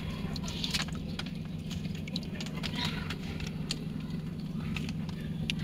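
Small splashes, drips and ticks of water in a fish tub, stirred by a hand, over a steady low machine hum.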